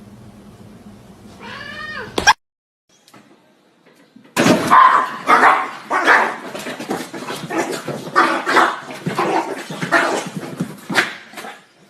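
Animal cries: a short rising call cut off about two seconds in, then, after a brief gap, a long run of loud, harsh cries, one or two a second.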